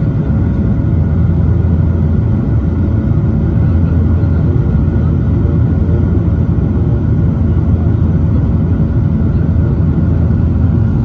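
Dash 8-400 turboprop engines and propellers droning steadily, heard from inside the cabin with the landing gear extended on final approach: a loud, even low hum with a rush of air over it.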